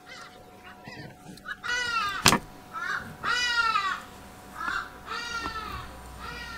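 The aluminium gear case of a vintage Stanley electric drill being worked off its motor housing, the parts squeaking as they slide apart in a series of short rising-and-falling squeals, with one sharp click about two seconds in.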